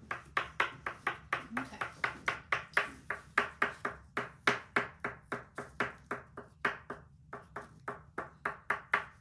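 White oil pastel tapped over and over onto black paper on a wooden tabletop, dabbing dots: quick sharp taps about four a second, with two short pauses, one near the middle and one about two thirds through.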